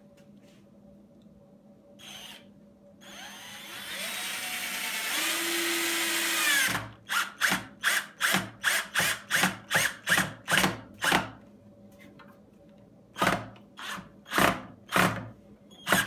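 Cordless drill-driver driving a pocket-hole screw into oak: one long run, rising in pitch, that cuts off suddenly, then a string of short trigger bursts, about three a second, with a few more near the end.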